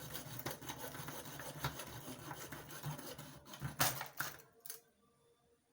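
Rapid, irregular scraping and rubbing of hand-tool work on the pipe repair, with a few sharp knocks near the end; it stops about four and a half seconds in.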